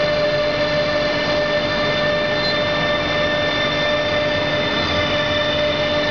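HSD 3 kW spindle of a CNC wood router running at a steady speed: a constant high whine made of several held tones over machine noise.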